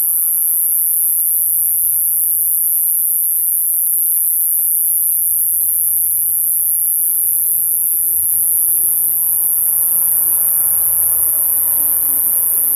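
Euconocephalus thunbergi (kubikirigisu, a coneheaded katydid) singing: one continuous, very high-pitched buzz, held steady without a break.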